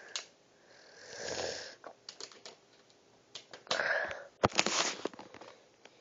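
Close-up handling noise: scattered sharp clicks and short breathy hisses, the loudest a sharp click followed by a hiss near the end.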